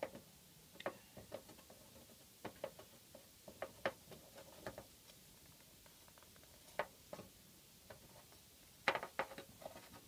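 A small clear plastic vial handled by fingers while its tissue-paper packing is picked out, giving light, irregular clicks and rustles in small clusters.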